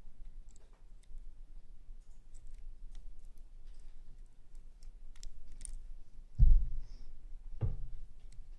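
Small irregular clicks of a Master Lock 1534D's combination dials being turned position by position while the shackle is held under tension, feeling for the correct number. Two dull thumps stand out near the end.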